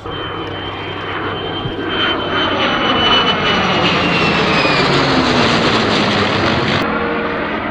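Heritage-flight formation of a USAF F-35A jet and a P-51 Mustang making a pass, the jet's engine noise building and growing loudest about three seconds in. As the pass goes by, the pitch falls away.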